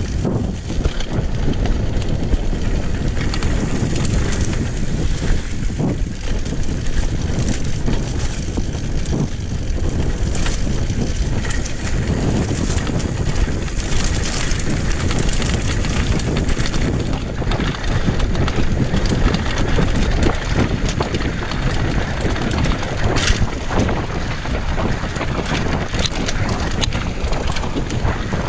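Mountain bike riding fast down a dirt singletrack, with wind buffeting the camera microphone. Tyres run over the dirt while the bike knocks and rattles over bumps again and again.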